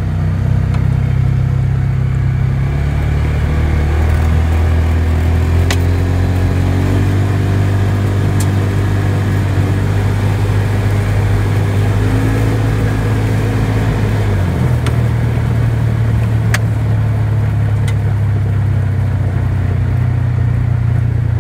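Polaris Ranger 570 midsize side-by-side's single-cylinder engine running steadily under way, heard from the driver's seat. The engine note shifts about two-thirds of the way through, and a few sharp clicks are heard.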